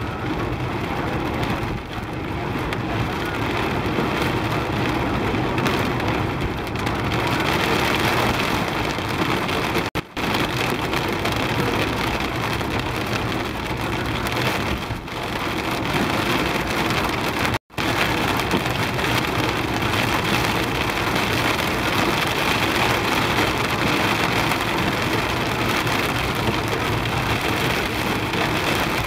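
Heavy rain pelting the roof and windscreen of a moving car, heard from inside the cabin, mixed with the hiss of tyres on a flooded road. The sound is steady and cuts out for an instant twice.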